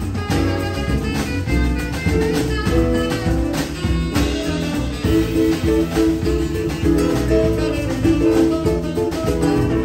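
Live Latin band playing an instrumental passage of a bossa-samba tune: acoustic guitar, drum kit and bass with keyboard, no singing.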